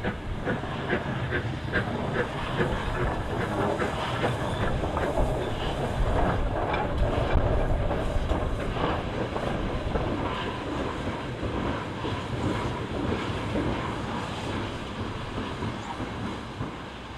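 LMS Princess Coronation class 4-6-2 steam locomotive 6233 Duchess of Sutherland passing under steam, with the rhythmic clatter of wheels over the rails. The sound fades near the end as it draws away.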